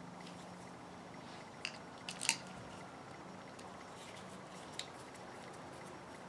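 A few faint metal clicks and taps from a screwdriver turning the cover screws on a Yamaha Warrior 350 carburetor, tightening it down over a new gasket, with a small cluster about two seconds in and one more near the end. A faint steady low hum sits under them.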